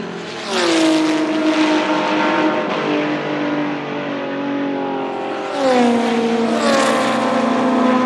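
Two historic endurance race cars pass at full throttle, one about half a second in and the next about five seconds later, each engine note dropping in pitch as it goes by and then holding a steady high-revving tone as it pulls away.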